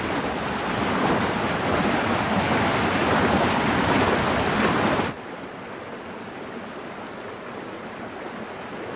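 Snow-fed mountain stream rushing loudly over boulders in whitewater. About five seconds in it drops suddenly to a quieter, steady rush of river water.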